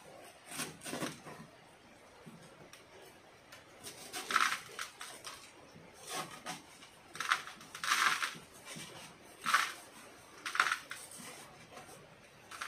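Gritty bonsai soil crunching and scraping as a wooden stick rakes through it in a plastic pot to loosen the root ball. A series of short scrapes, louder and more frequent in the second half.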